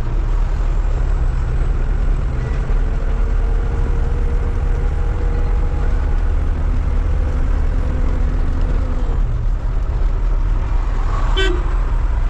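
Truck engine and road noise heard inside the cab while driving, a steady low rumble. Near the end there is a short horn toot.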